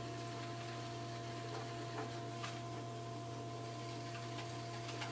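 Electric pottery wheel motor humming steadily while a trimming tool shaves a leather-hard clay pot, with a few light ticks as clay trimmings fly off, mostly about two seconds in and near the end.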